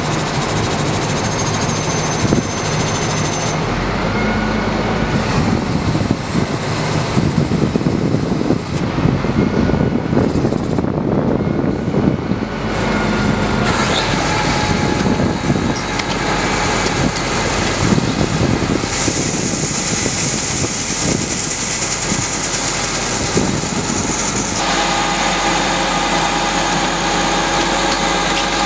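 Engine and belt conveyor of a truck-mounted aluminium seed and fertilizer tender running steadily, the sound changing abruptly several times.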